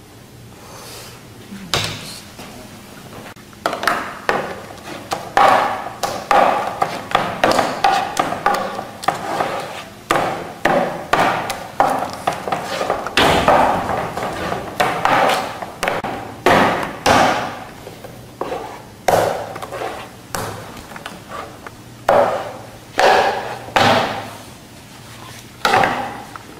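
A kitchen knife repeatedly knocking on a wooden board as it works coloured surimi (fish paste), in sharp strokes about two a second with short pauses. The knocking starts a few seconds in.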